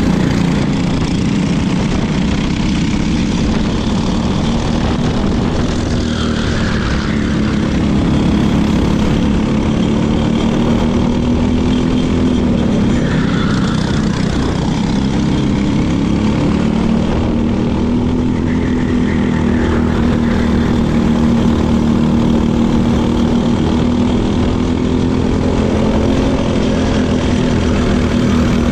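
Briggs & Stratton LO206 four-stroke single-cylinder kart engine running at racing speed, its pitch dipping briefly about twelve and seventeen seconds in and climbing again.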